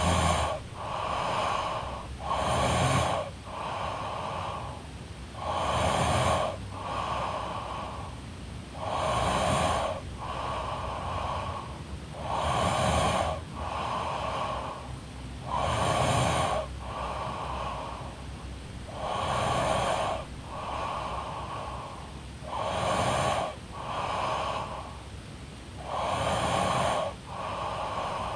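A woman snoring in her sleep, steady and regular: about one breath every three and a half seconds, each breath snoring in two parts, one swell straight after the other.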